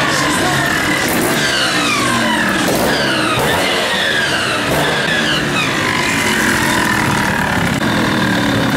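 Beta trial motorcycle engine revved over and over, each burst of revs falling away in pitch, roughly once a second.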